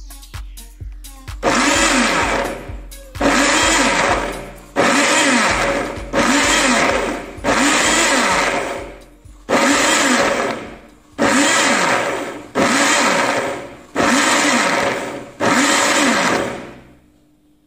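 Electric blender chopping pieces of lime, run in about ten short bursts of a second or so each, starting about a second and a half in. Each burst starts sharply and fades as the motor winds down, a quick pulsing to break the limes into a coarse pulp.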